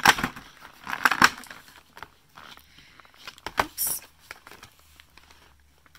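A small plastic lotion bottle being pulled out of a cardboard advent-calendar compartment and handled, making sharp clicks and cardboard rustles. The loudest come at the start and about a second in, with a few more just before four seconds, then it goes quieter.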